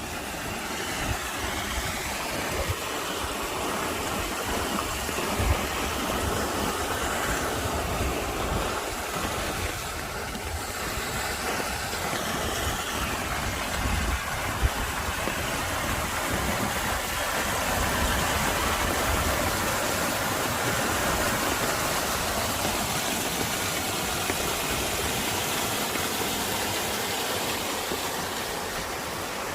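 Mountain stream rushing steadily, running high with rainwater, with low rumbling wind buffeting on the microphone.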